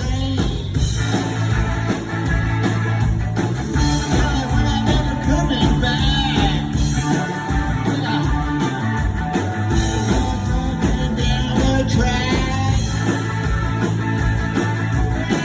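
Rock band playing live: electric guitars over bass and drums, loud and continuous.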